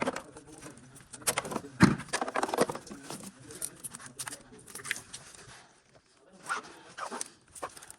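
Irregular clicks, knocks and light metallic rattles of tools and parts being handled, with a busy cluster in the first few seconds and a few more sharp clicks near the end.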